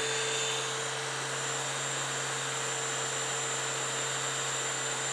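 Shark CH951 UltraCyclone Pet Pro+ cordless hand vacuum running steadily with its motorized pet power brush attached: an even motor whine over a rushing hiss of airflow.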